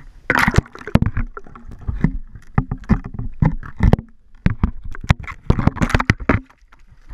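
Water splashing and sloshing around a GoPro camera in its waterproof housing as it is dunked through an ice-fishing hole, with many irregular sharp knocks and clatters on the housing that die away near the end.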